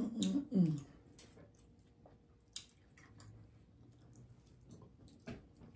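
Chewing and wet mouth sounds of someone eating, with a few sharp clicks scattered through.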